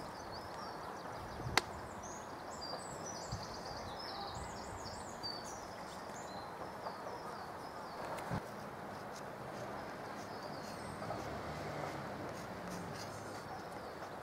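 A small songbird singing a quick run of high chirping notes over a steady outdoor background hiss, the song fading out after about five seconds. Two sharp clicks stand out, one early and one about halfway through.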